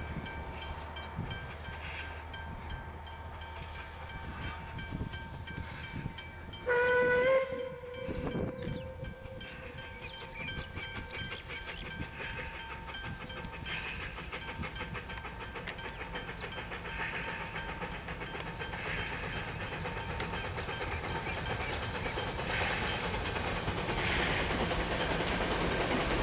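Narrow-gauge NA-class steam locomotive sounding one short whistle blast about seven seconds in, the loudest sound, over rhythmic exhaust beats that grow louder as the engine approaches.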